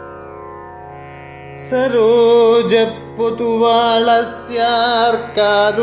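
Devotional song: a steady drone sounds alone for the first second and a half or so, then a solo voice comes in singing long held notes that bend and waver in pitch, in an Indian classical style, over the drone.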